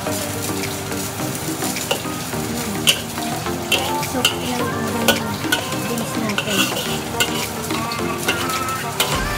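Green beans, minced pork and carrots sizzling in a hot wok as a spatula stirs and tosses them. The spatula scrapes along the wok and clinks sharply against it, roughly once or twice a second.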